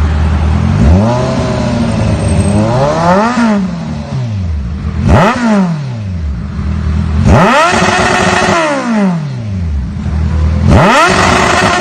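Kawasaki Ninja 1000's inline-four with an SC-Project aftermarket exhaust, revved from idle about five times: short throttle blips, and one rev held for about a second and a half before dropping back.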